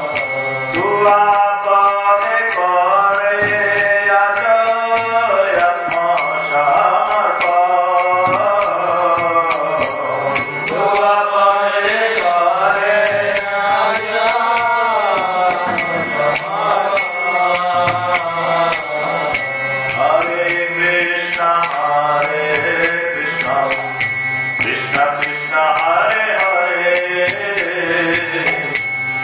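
A man's voice singing a devotional chant into a headset microphone, the melody rising and falling in long phrases, over a steady beat of light percussion.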